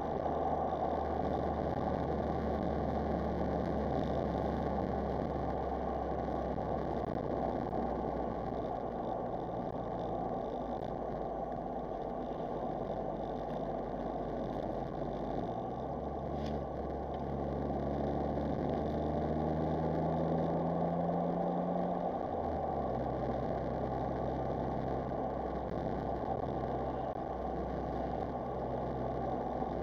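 Smart Roadster Brabus's small turbocharged three-cylinder engine running under way, with steady road noise. A little past the middle, the engine note climbs for about five seconds and then drops suddenly.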